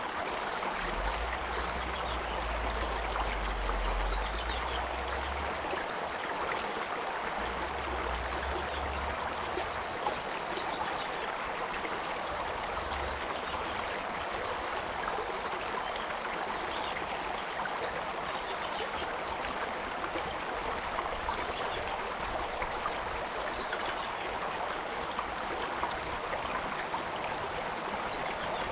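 A stream flowing with a steady rush of water. A low rumble comes and goes underneath, from about one to five seconds in and again around eight seconds.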